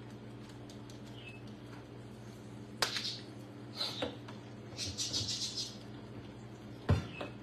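Kitchen handling noises: a sharp knock about three seconds in and a louder one near the end, with a quick, high rattle in between, over a steady low hum. A pet bird chirps briefly.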